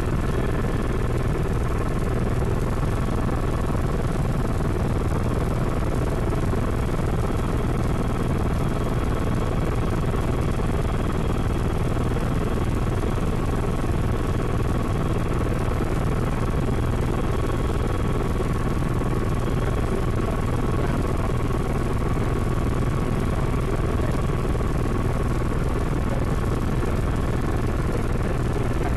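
Helicopter in flight heard from inside the cabin: a steady low rumble of rotor and engine with a few steady high whining tones over it.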